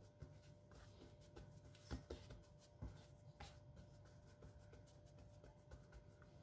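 Near silence, with a few faint soft taps and rubs of fingertips pressing a ball of soft yeast dough flat on a floured granite counter.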